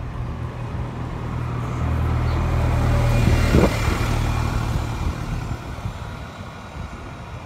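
Wright StreetLite single-deck bus's diesel engine running as the bus passes close by and drives away, a low hum that swells to its loudest about halfway through and then fades.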